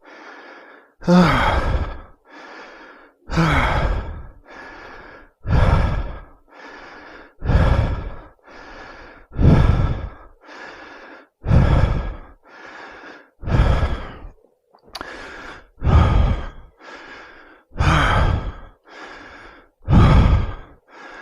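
A man breathing hard and out of breath from climbing stairs: about ten heavy exhales, roughly one every two seconds, with quieter in-breaths between.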